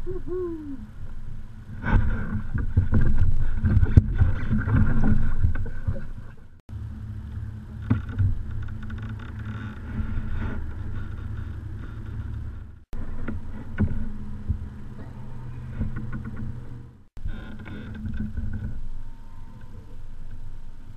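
Low rumble of wind and water on the microphone of a bow-mounted action camera on a plastic kayak, loudest in the first few seconds and breaking off abruptly three times. A short falling squeak right at the start.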